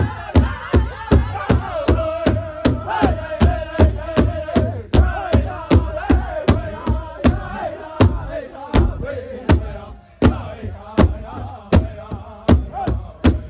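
Powwow drum group singing an intertribal song, several high voices together over a large shared hand drum struck in unison with drumsticks at about three to four beats a second. The singing thins out about eight seconds in, and the drumming breaks off briefly around ten seconds in before the beat picks up again.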